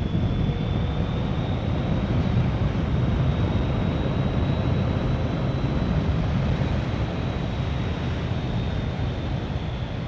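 BMW K1200GT inline-four motorcycle cruising on a wet road: steady engine hum with wind and tyre noise, and a faint high whine above it.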